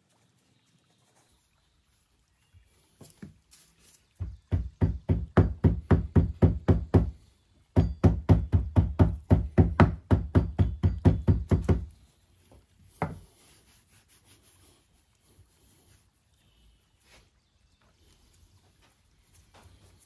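Moulding sand being rammed down into a small metal casting flask: two runs of rapid dull thuds, about four or five a second, with a short break between them, then one last thud a second later. A few light knocks come before the pounding, and soft sand-handling sounds follow.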